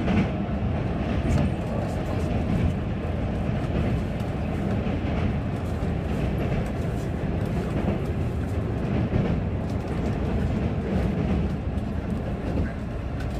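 JR 185 series electric train running at speed, heard from inside the passenger car: a loud, steady traction-motor drone over the rumble of the wheels on the rails while crossing a steel truss bridge.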